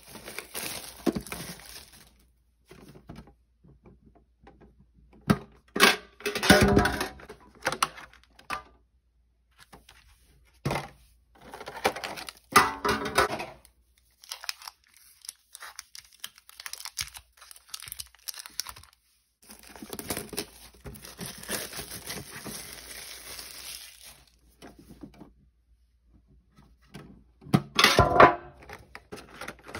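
Pokémon booster pack wrappers being torn open and crinkled, in several separate bursts with short quiet gaps, including a longer stretch of rustling about twenty seconds in.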